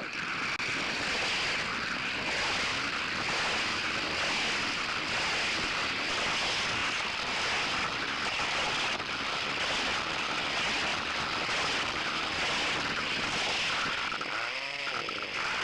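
Sizzlers electric toy cars racing around a track, heard through a tiny keychain spy camera's microphone riding along: a steady rushing, rattling run of motors and wheels, with a short wavering whine near the end.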